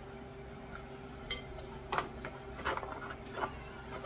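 Kitchen clatter: a handful of light knocks and clinks of dishes and utensils, one of them a ringing clink about a second in, over a steady low hum.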